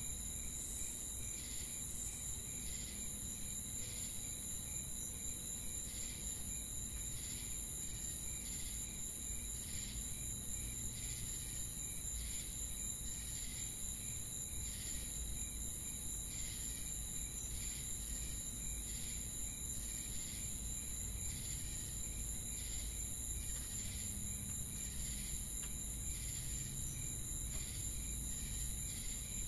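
Ambient sound-effect track of insects chirping: a steady high-pitched buzz with repeated short chirps pulsing evenly over it, and a faint low rumble underneath.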